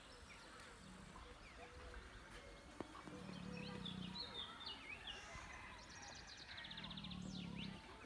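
A sleeping male lion snoring: low, drawn-out snores every three to four seconds, the strongest about three and seven seconds in. Small birds chirp and trill over it.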